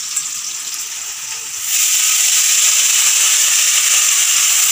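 Oil sizzling in a steel wok where onions, whole spices and cashews are frying; a steady hiss that jumps louder about one and a half seconds in.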